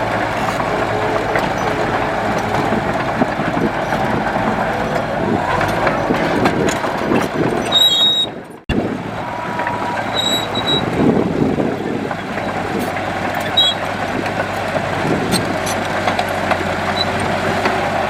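Heavy earthmoving machinery running steadily, with a few short high squeaks. The sound drops out for an instant a little past halfway, then the machinery carries on.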